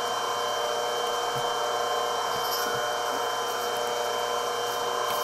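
Milling machine running steadily with its end mill cutting a cast aluminum part: a constant whine of several tones over a hiss.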